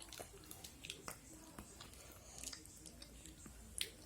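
Faint chewing of hard milk chocolate: scattered small crunching clicks.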